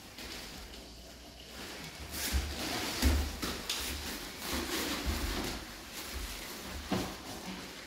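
Two grapplers in gis moving on foam mats: several dull thumps of bodies and bare feet landing on the mats, the loudest about three seconds in, with scuffing of gi fabric.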